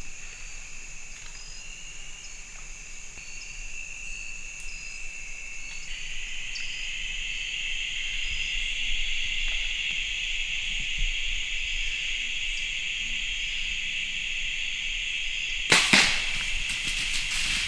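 Steady high-pitched buzzing of insects, louder from about six seconds in. Near the end a hunting bow is shot with one sharp snap, followed by a few quieter clicks.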